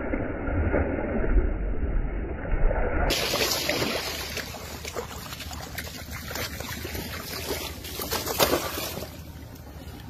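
Water splashing as a large speared fish thrashes in shallow river water, with a low rumble underneath. After a cut about three seconds in come sharper wet slaps and splashes as the fish flaps on wet sand at the water's edge.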